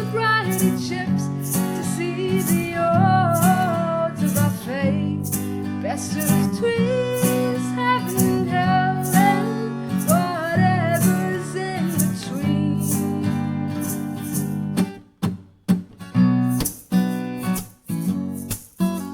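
Acoustic guitar strummed in a steady rhythm, with a gliding melody line above it for about the first twelve seconds. Near the end the guitar breaks into short, sharp stop-start strokes.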